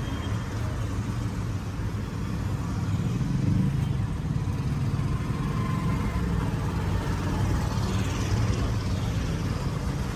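Road traffic: passing vehicle engines making a steady, uneven rumble.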